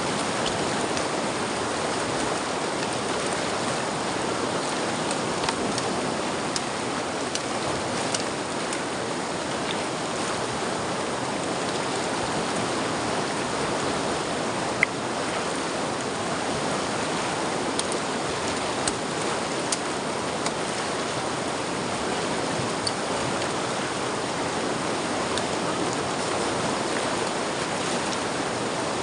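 River water running steadily over stones, with a few faint clicks and one sharper click about halfway through.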